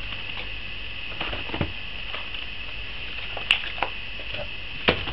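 Hands handling lure packaging, plastic packs and small cardboard boxes: light rustles and taps, with two sharper clicks about three and a half and five seconds in, over a steady hiss.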